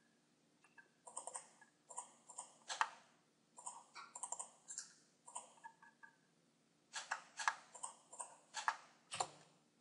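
Computer keyboard typing: three short bursts of quick keystrokes with pauses between them.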